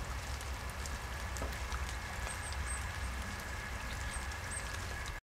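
Rain falling into a puddle: a steady patter of drops over a low rumble, cutting off suddenly at the end.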